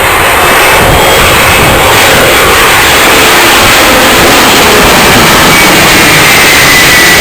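Jet engines of a large cargo aircraft at close range, a very loud, steady roar with a faint high whine near the end.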